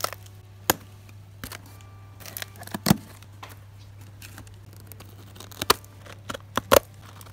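Scissors slitting packing tape along a cardboard box seam: a string of irregular sharp snips and clicks, with one louder thump a little before halfway, over a steady low hum.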